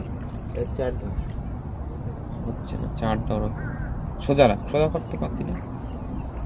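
Steady high-pitched insect chorus droning without a break, over a low rush of wind and water. A voice breaks in briefly a couple of times, about three and four and a half seconds in.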